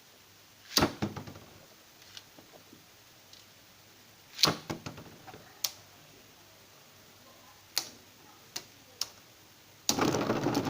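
Sharp clicks and knocks of plastic Beyblade spinning-top parts, two loud ones followed by a brief rattle and several lighter ticks. A louder continuous rattle starts near the end.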